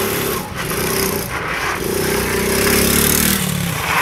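ATV (quad bike) engine running under throttle, its pitch climbing in the middle and dropping off shortly before the end.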